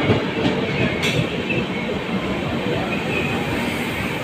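Passenger coaches of the Sealdah–New Delhi Rajdhani Express running past at speed: a steady rumble and rattle of wheels on the rails, with a sharp clack about a second in.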